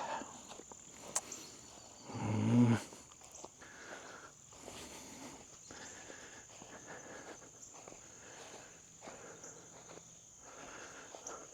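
Footsteps on the ground outdoors with a steady, high insect trill in the background. About two seconds in, a short, low, pitched sound stands out as the loudest thing.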